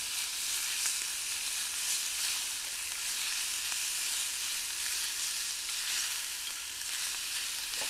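Sliced beef and garlic chips frying in sesame oil: a steady hissing sizzle with faint scattered crackles.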